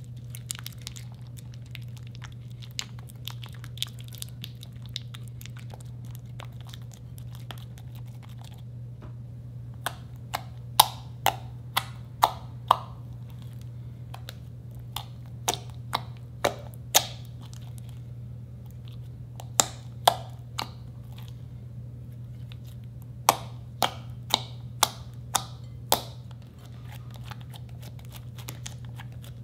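Thick white slime being stirred with a silicone spatula and kneaded by hand in a glass bowl: faint sticky crackling at first, then from about ten seconds in, clusters of sharp wet clicks and pops as the slime stretches and air pockets burst. A steady low hum runs underneath.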